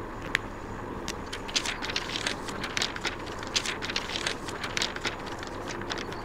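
Paper rustling in irregular crackles as exam sheets are handled and flipped through, with one sharp click about a third of a second in, over a steady low background noise.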